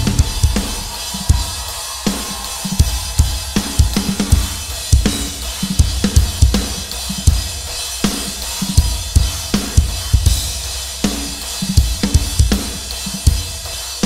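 Live rock drum kit playing a steady beat with bass drum, snare, hi-hat and cymbals, with no singing over it.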